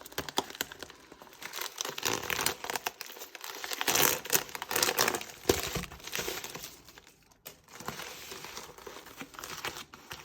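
Crinkling and rustling of package wrapping being tugged and handled as someone pulls at its pull strip, which won't open. The handling comes in irregular bursts, loudest about halfway through, with a brief lull near the three-quarter mark.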